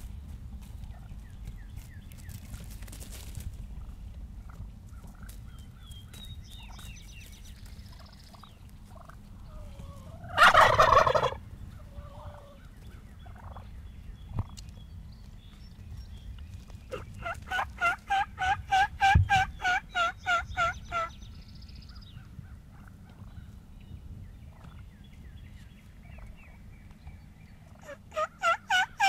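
Wild turkey gobbler gobbling once, loudly, about ten seconds in. Later comes a long run of evenly spaced turkey yelps, about four a second, and a second run starts near the end.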